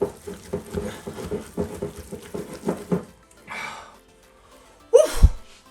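Wonton filling being stirred hard in a glass bowl, quick repeated strokes for about three seconds. Then comes a breath and, near the end, a short falling groan of effort from the tired stirrer.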